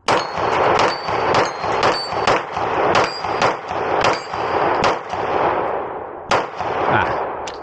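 Rapid string of 9mm pistol shots from a Beretta pistol, fired in quick succession at about three shots a second for some five seconds. Two slower, spaced shots follow near the end, each shot ringing out with a short echo.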